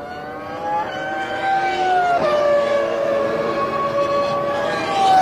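Arrows Supertec 3.0-litre V10 Formula 1 engine at high revs, a thin high-pitched scream. Its pitch steps down about two seconds in, then holds steady as the car comes nearer and grows louder.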